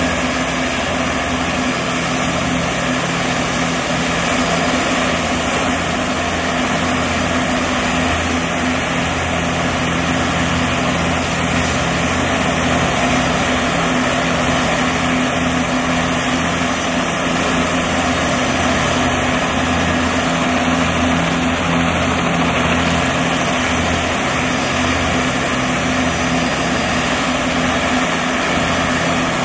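Several Bell 206B JetRanger turbine helicopters running together on the ground: a steady high turbine whine over the pulsing beat of the main rotors.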